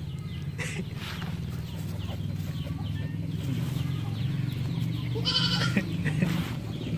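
One short, high-pitched animal call about five seconds in, over a steady low hum and faint repeated chirps.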